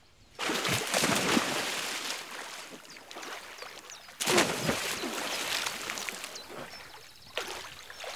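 River water splashing and sloshing. It starts suddenly about half a second in and fades, then comes again about four seconds in and once more, more weakly, near the end.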